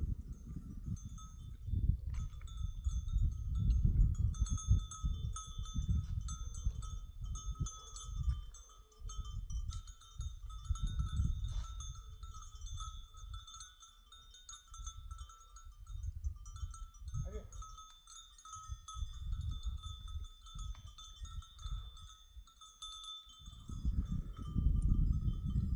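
Bells hung on a herd of goats and sheep, clinking and ringing almost without a break as the animals move. A low, gusting rumble runs underneath.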